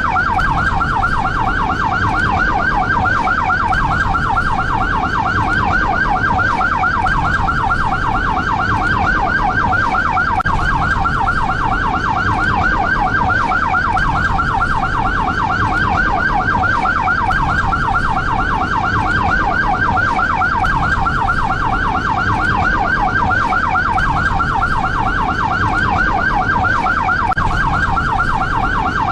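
Brazilian SAMU ambulance siren sounding in a fast yelp: rapid sweeps in pitch repeating several times a second, with a low rumble beneath.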